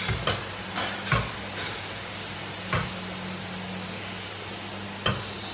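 Kitchen utensils clinking and knocking about six times against pan and dishes, the loudest about a second in and near the end, over a low steady hum.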